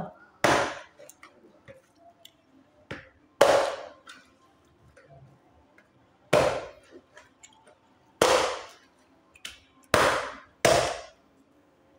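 Hatchet chopping into a young green kopyor coconut to split it in two: six heavy, irregularly spaced chops, each a sharp crack with a short ring, the last two close together near the end, with a couple of lighter knocks between.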